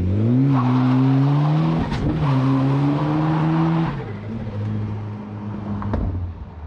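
Volvo 940 Turbo's turbocharged four-cylinder engine accelerating hard on boost: revs climb, dip briefly at a gear change about two seconds in, and climb again. About four seconds in the throttle is lifted and the engine drops to a steadier, lower drone.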